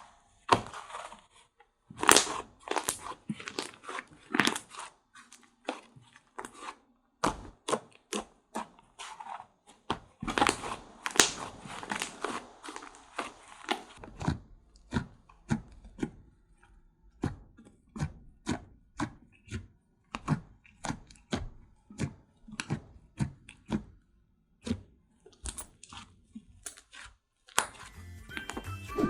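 Slime being squished and poked by hand close to the microphone: an irregular string of sharp pops and clicks, a few a second, with short pauses between handfuls.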